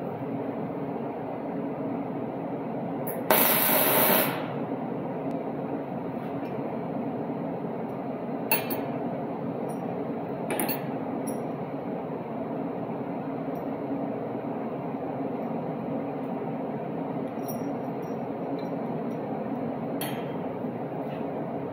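Steady workshop hum with a loud hiss lasting about a second, three seconds in, then a few light metal clinks.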